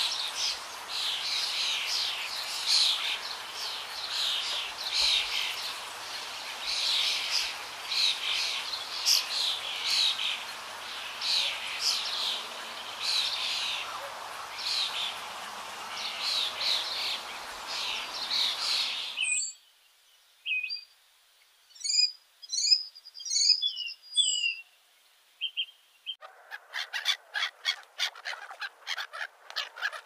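Small birds chirping and calling over a steady background hiss. About nineteen seconds in, the hiss drops out, leaving scattered high chirps and whistles. Near the end a fast run of short chirps begins.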